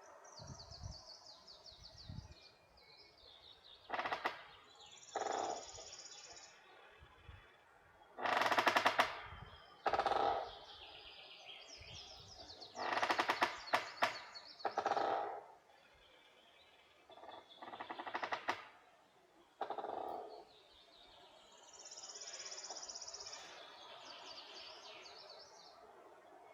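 Forest birds singing: high, thin trilling songs repeat throughout, broken by several louder bursts of fast rattling notes, the loudest about a third of the way in and again around halfway.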